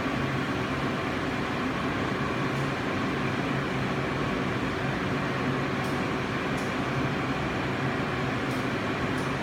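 Continuous inkjet coder's ink pump running with a steady hum during the printer's slow start-up sequence, with a few faint ticks in the second half.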